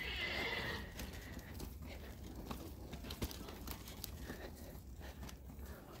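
A horse whinnying briefly and faintly in the first second, then light scattered clicks over a low steady rumble.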